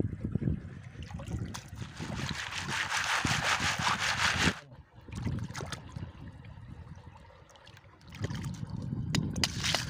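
Water splashing and sloshing as a plastic basket of small kupang mussels is worked in river water, getting louder until it cuts off suddenly about four and a half seconds in. After a quieter stretch, sharp clicks of shells from about eight seconds in as a hand sorts through them.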